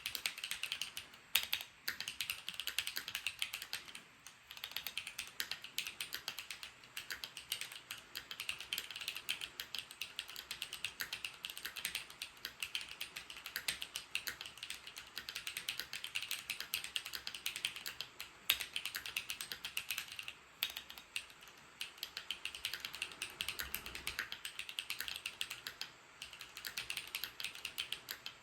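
Fast, continuous typing on a Keychron Q1 aluminium mechanical keyboard with Dark Jade switches. The board is modded with rebalanced, relubed stabiliser wires, tape between the case halves and EVA case foam. There are brief lulls about four seconds in and again near the end.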